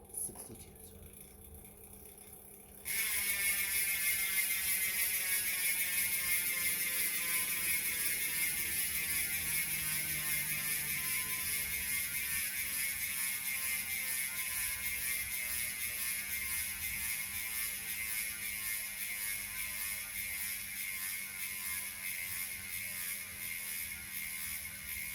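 DT Swiss star-ratchet freehub fitted with a 60-tooth FOVNO ratchet, buzzing as the rear wheel freewheels. A fast, even clicking starts suddenly about three seconds in, then slowly drops in rate and fades as the wheel spins down.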